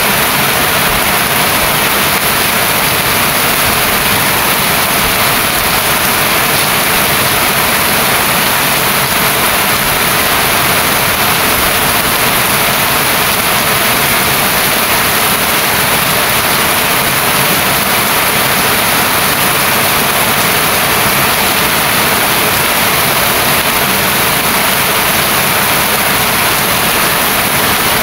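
Heavy rain falling, a steady loud hiss with no breaks.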